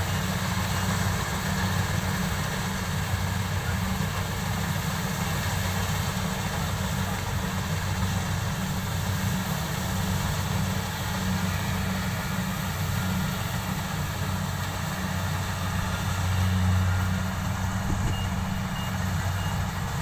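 Diesel engine of a Kubota rice combine harvester running steadily under load while it cuts a rice crop, a constant low drone that swells briefly about three quarters of the way through.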